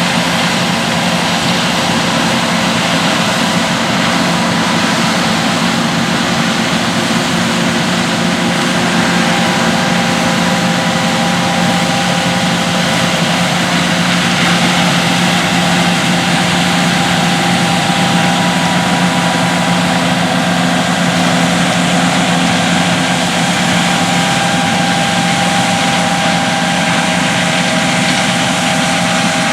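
John Deere S670 combine harvesting corn: its diesel engine and threshing machinery running in a steady drone, with a few steady whining tones that shift slightly in pitch partway through.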